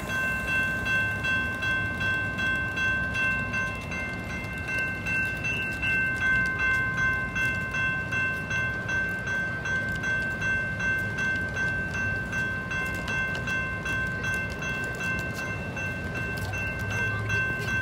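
Railroad crossing warning bell ringing steadily, about two strokes a second, with the low rumble of a Metra commuter train underneath.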